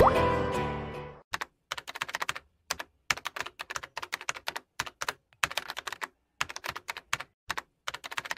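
Guitar intro music fades out about a second in. After that comes a computer-keyboard typing sound effect: irregular runs of quick key clicks with short gaps between them.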